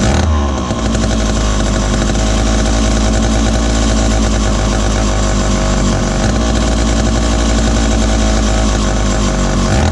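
Lancaster 40IL (Dayton 2Z383) chainsaw's two-stroke engine running: the engine note changes just after the start as it is revved up, stays at high speed, and settles back toward idle at the very end.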